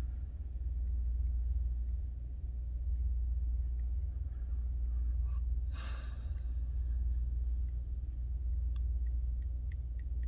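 A steady low rumble of background noise. About six seconds in there is a brief rush of breath-like noise, and near the end a few faint ticks of fingertips tapping a touchscreen.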